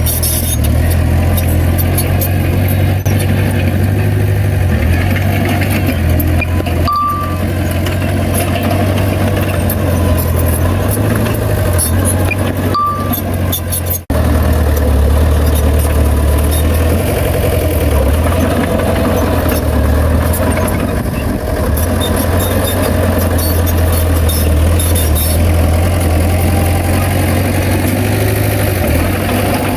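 Heavy diesel engine of earthmoving machinery running steadily with a deep drone, broken off briefly about midway. Two short high beeps sound a few seconds apart before the break.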